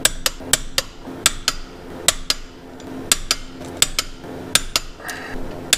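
Torque wrench clicking as the flywheel bolts are tightened to 72 newton metres: sharp metallic clicks, often in quick pairs, roughly one pair a second.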